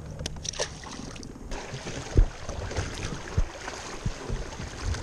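Shallow river water rushing around a plastic kayak in a riffle, with several dull thumps, the loudest about two seconds in. A few light clicks come in the first second.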